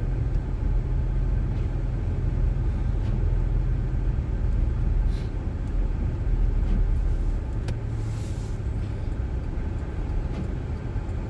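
A front-wheel-drive car driving slowly on snowy, partly plowed town streets, heard from inside the cabin: a steady low rumble of engine and tyres, with a brief hiss about eight seconds in.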